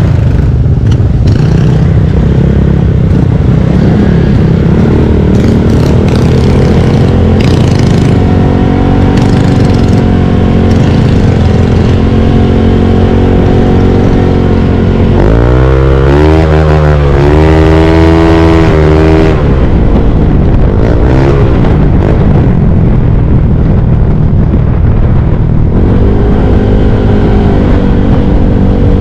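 Honda Lead 125 scooter's single-cylinder engine running at steady cruising speed, under heavy wind noise on the microphone. Around the middle, a louder engine note rises and falls for about four seconds.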